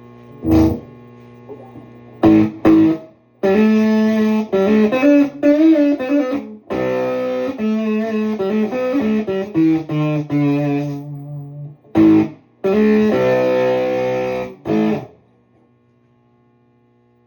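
Electric guitar played through a homebuilt overdrive/reverb pedal, set with volume about 3, gain about 4 and reverb off: a couple of short chord stabs, then a longer phrase of chords and notes, stopping about 15 seconds in. A steady low mains hum sits underneath and is left alone after the playing stops.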